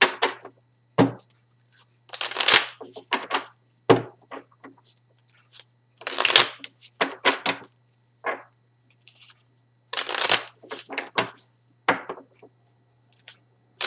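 A deck of tarot cards being shuffled by hand in short rustling bursts with brief pauses between, repeated many times, over a faint steady low hum.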